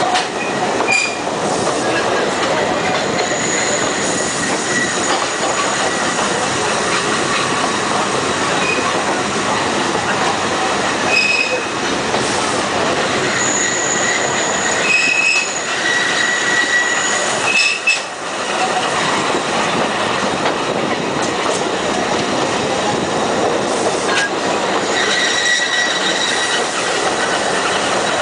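Alishan Forest Railway narrow-gauge steam train running along the track, heard from an open carriage window: a steady rumble of wheels on rail, with high wheel squeals that come and go several times as the train takes curves.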